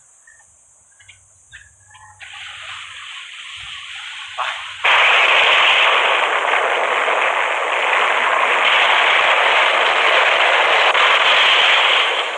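Loud, dense rattle of rapid continuous gunfire, starting abruptly about five seconds in after a rising noise, and running on for about seven seconds.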